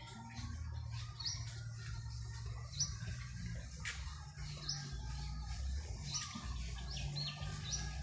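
Birds chirping: short, high notes repeated about once a second, over a steady low rumble, with one sharp click about halfway through.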